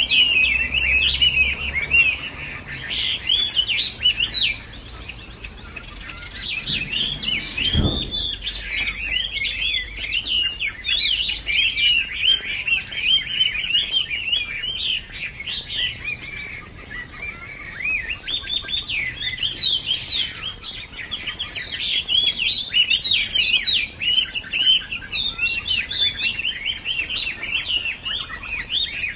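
Chinese hwamei (China thrush, melodious laughingthrush) singing: a long run of fast, varied, sweeping high phrases, easing off in two short lulls. A single soft knock about eight seconds in.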